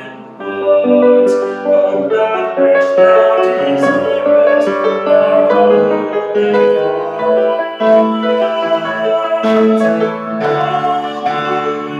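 A male soloist singing a sacred song with piano accompaniment.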